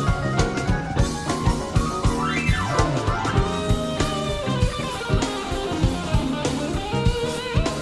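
Jazz-fusion band playing live: electric guitar over bass and drum kit with a steady beat. About two seconds in, a fast run sweeps up and back down.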